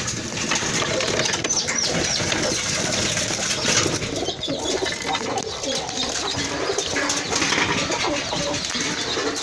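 Domestic pigeons cooing in a loft, several birds at once, with some shuffling and a little wing flapping.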